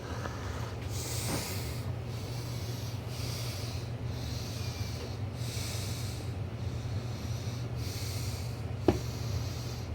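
Lakewood Model 200 box fan's motor humming steadily with its blade off, just given a drop of oil. A soft hiss comes and goes about every second and a half, and a single knock sounds near the end.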